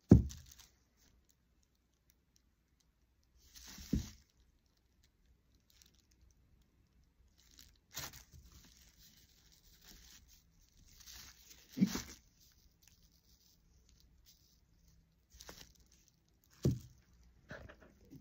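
Paper crinkling and rustling as a glass bottle is handled on a paper-covered work surface. It is broken by four dull thumps, the first the loudest, as the bottle or hands knock down on the table.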